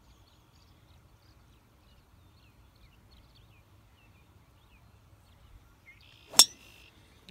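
A golf driver striking a ball off the tee: a short swish of the downswing, then one sharp, loud crack of the clubhead hitting the ball about six seconds in.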